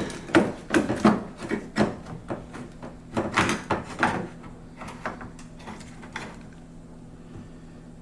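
Irregular knocks and clatters from hands working on a car door and its parts, dying away after about four seconds over a steady low hum.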